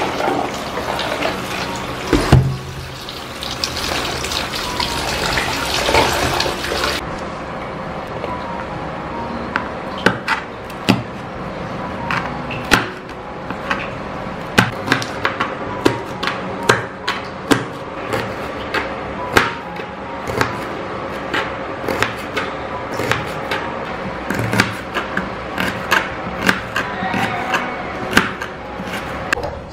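A kitchen tap runs water into a plastic basin at the sink for about the first seven seconds. Then a knife slices red chilies and shallots against a plastic cutting board, a run of sharp taps a few a second.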